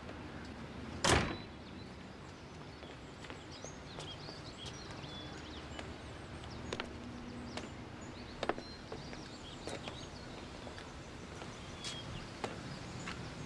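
A front door shuts with one heavy thud about a second in. After it comes quiet outdoor background with scattered short bird chirps and a few sharp clicks of footsteps on the stone steps.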